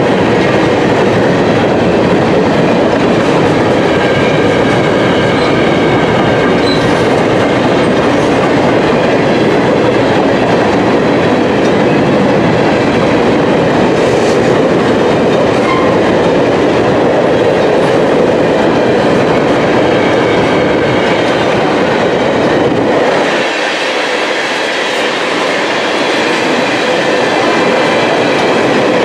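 Empty covered hopper cars of a long freight train rolling past at trackside: steady, loud noise of steel wheels on rail. The low rumble drops away for a couple of seconds near the end.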